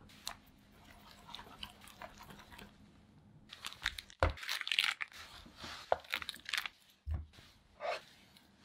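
Baking paper crinkling and crackling as it is folded and creased by hand, with a couple of dull thumps.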